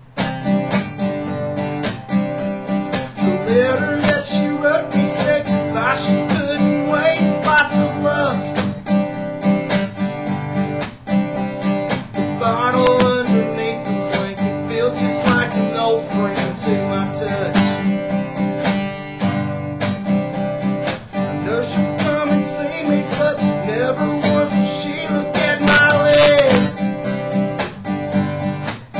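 Acoustic guitar strummed in a steady rhythm, playing a country song's accompaniment.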